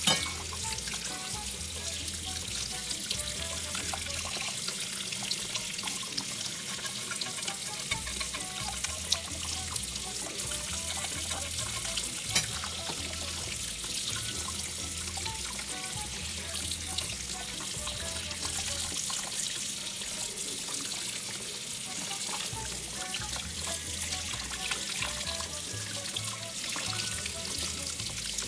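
Tap water running steadily into a sink and splashing over a fish being rinsed of blood by hand, with background music's low bass line underneath. A couple of brief knocks stand out, about nine and twelve seconds in.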